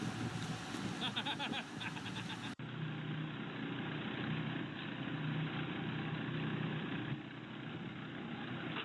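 An engine running steadily with a low hum, starting abruptly about two and a half seconds in. Before it there is rough noise with a quick run of clicks.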